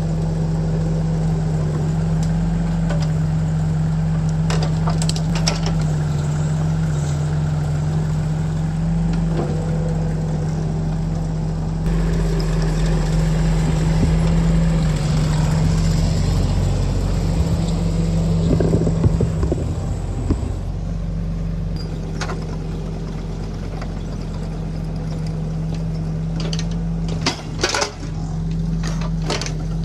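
Engine running steadily at an even pitch, a little louder for a stretch in the middle, with a few knocks and clatters.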